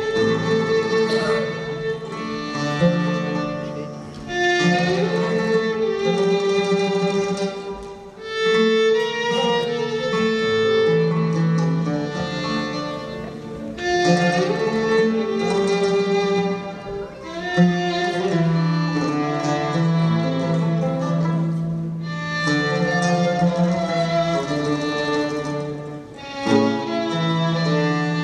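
Turkish classical music ensemble playing an instrumental passage in phrases, with bowed strings such as violin and cello carrying the melody.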